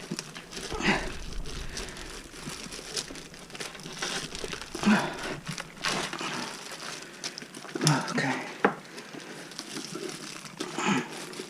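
Gloved hands working a rubber tire bead over a Onewheel Pint's hub-motor rim: irregular rubbing and crinkling scrapes with a few sharp clicks.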